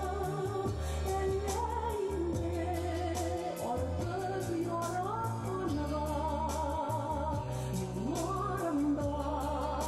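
A woman singing a song into a microphone, holding and gliding between notes with vibrato, over an instrumental accompaniment with sustained bass notes and a regular beat.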